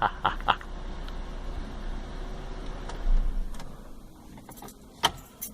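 Ford Mustang's engine idling with a low steady rumble that swells briefly about three seconds in and then dies away. A few light clicks follow, with a sharper click near the end.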